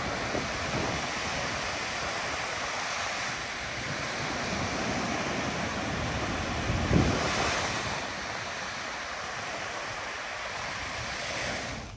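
Small waves breaking steadily on a sandy Lake Michigan shore, with wind buffeting the microphone and one louder surge about seven seconds in.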